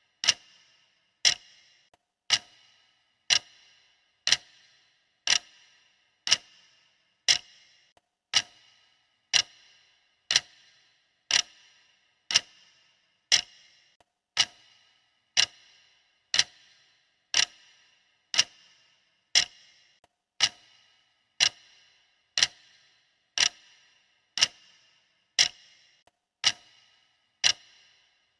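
Clock-style ticking sound effect of a countdown timer: one sharp tick about every second, each with a short ringing tail, in an even, unbroken rhythm.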